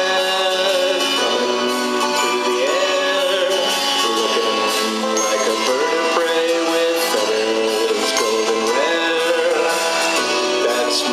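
A live band playing, with a melody line sliding up and down in pitch over sustained chords; the sound is thin, with almost no bass.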